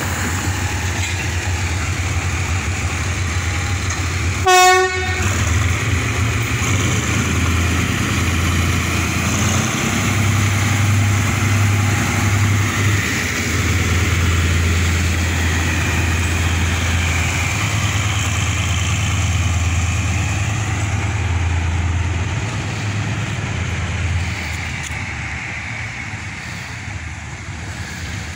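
Old GE diesel locomotive No. 4011 of the State Railway of Thailand running at low speed while shunting passenger coaches, a steady low engine hum with one short horn blast about four and a half seconds in. The sound fades over the last few seconds as the train moves away.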